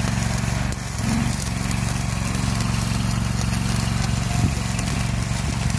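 Steady drone of a small engine running, over a continuous hiss and crackle from an automated welding head working on a rail joint.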